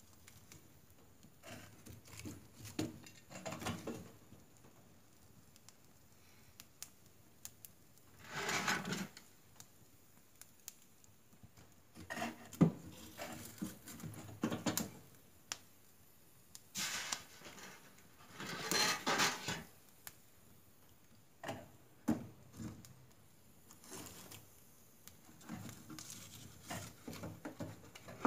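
Wood fire crackling in the open firebox of a wood stove, scattered sharp pops and snaps. Several louder scraping, knocking bursts of about a second as logs are pushed into the fire and moved around.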